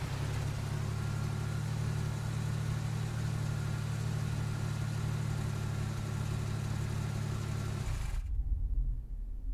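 Car engine idling with a steady low hum. About eight seconds in the hum stops, leaving only a deeper rumble as the higher sounds cut off suddenly.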